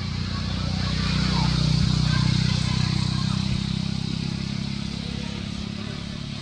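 A motor vehicle's engine passing by: a low, steady hum that grows louder to a peak about two seconds in, then slowly fades.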